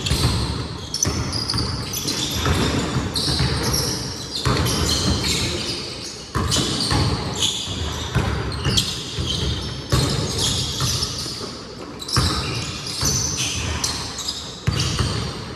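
Basketball bouncing on a gym court during play: repeated, irregular thuds echoing in a large hall, with players' voices.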